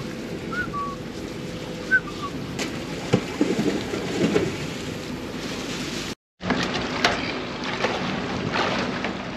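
Giant trevally splashing and thrashing at the water's surface in a cluster of sharp splashes about three to four and a half seconds in, over wind on the microphone and lapping water. A few short chirps sound near the start, and the sound cuts out briefly just after six seconds.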